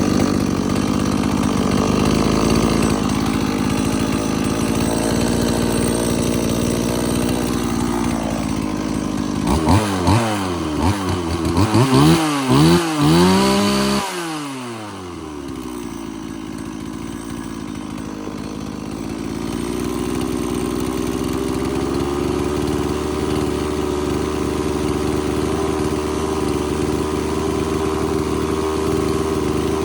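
Stihl MS180 two-stroke chainsaw engine idling steadily. About ten seconds in it is revved in a series of quick throttle blips, each rising and falling in pitch, then it drops back to idle.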